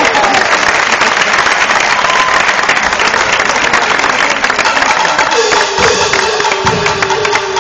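Audience applauding a stage show. About five seconds in, music joins the applause with a held instrumental note and a few drum beats.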